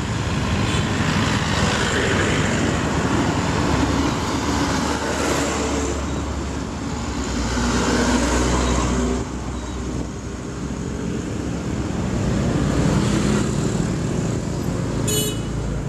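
Road traffic heard from a moving vehicle on a busy road: engines running and tyres on asphalt. It is loudest about eight seconds in, while passing close beside a dump truck, and eases off about a second later.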